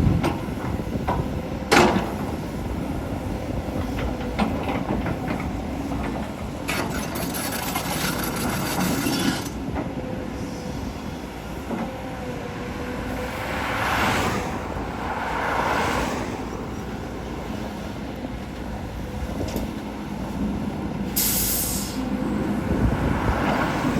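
Volvo EC210D excavator at work: its diesel engine runs steadily under load, with a sharp metallic clank about two seconds in and several stretches of rushing noise as it digs and moves soil.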